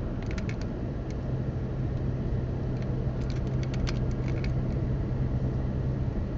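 Car engine running with a steady low hum, with scattered light clicks about half a second in and again in a cluster from about three to four and a half seconds in.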